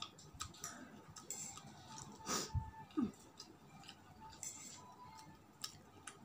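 A person hiccuping once, brought on by very spicy food: a short noisy intake with a low thump, then a brief voiced 'hic' about three seconds in. Light clicks are scattered around it.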